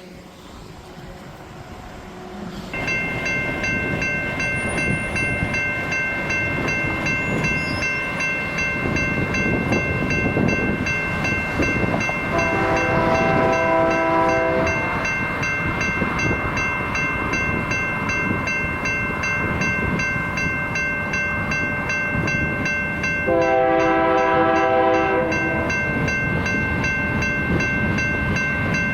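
Freight train approaching and passing a grade crossing. A crossing bell starts ringing steadily about three seconds in. The locomotive's multi-chime horn sounds two long blasts, one about twelve seconds in and another near twenty-three seconds, over the growing rumble of the train.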